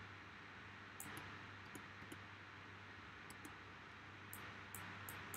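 Faint, scattered clicks of a computer mouse and keyboard in use, about nine in all, over a low steady hum of room tone.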